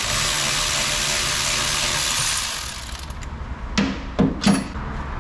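Power ratchet running for about three seconds, spinning out the brake caliper bolts, followed by three sharp metal knocks as the caliper is worked off the hub.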